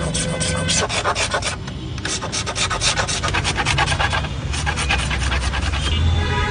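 Rapid back-and-forth rasping strokes of an abrasive worked by hand, several a second, with a short pause about a second and a half in and another past four seconds. A steady low hum runs underneath.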